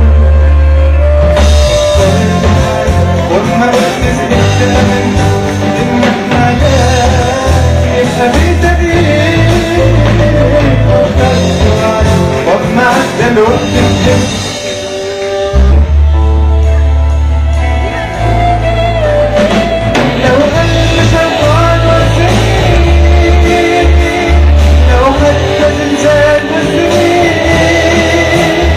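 A live band playing rock-style music with a heavy bass line and a wavering lead melody, with singing. The band drops back for a moment about halfway through, then the full band comes back in.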